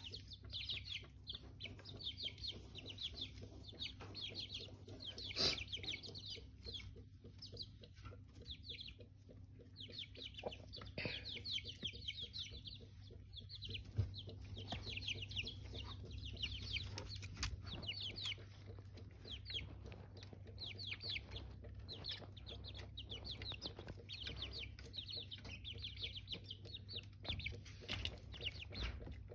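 A brood of month-old chicks peeping continually: many short, high-pitched peeps in quick runs, over a low steady hum, with a few light knocks.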